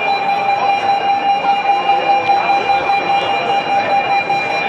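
Fire alarm in a large arena sounding a steady, multi-pitched tone over a haze of background noise.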